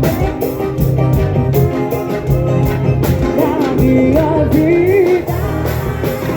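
Loud Brazilian party music with a steady beat and a singing voice.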